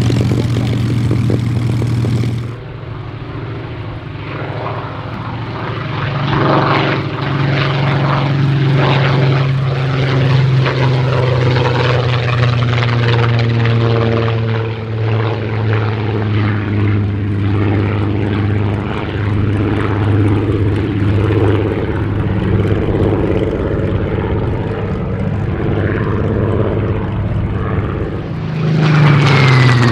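Supermarine Spitfire Mk.XVIIIe's Rolls-Royce Griffon V12 at high power with propeller noise on the take-off roll. After about two seconds it cuts to the aircraft droning in flight, its pitch sinking slowly as it draws away. Near the end the engine comes back loud on a low pass, its note dropping as it goes by.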